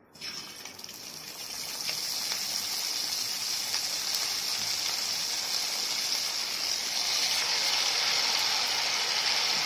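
A masala-coated piece of vaval (pomfret) fish lowered into hot oil in a pan, bursting into a sizzle the moment it goes in. The sizzle builds over the first two seconds into a steady, dense frying hiss.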